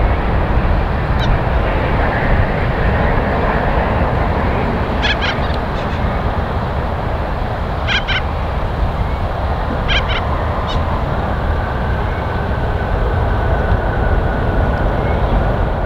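Rolls-Royce Trent XWB engines of an Airbus A350-1041 giving a loud, steady roar during its landing roll-out. Short bird calls cut through it about five, eight and ten seconds in.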